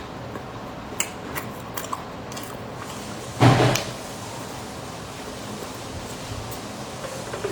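Close-miked eating sounds of a person eating soft bread and pastry: a few small mouth clicks, then one louder short burst about three and a half seconds in.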